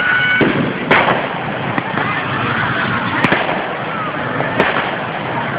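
Fireworks going off overhead: aerial shells bursting with sharp bangs about a second in, around three seconds, and again past four and a half seconds, over a continuous noisy din.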